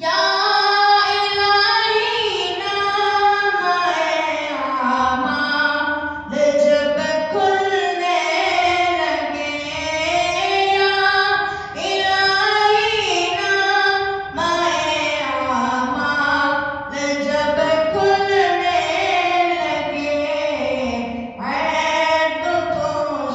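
A single high voice singing an Urdu naat unaccompanied, in long, ornamented held notes that glide between pitches, with short breaths between phrases.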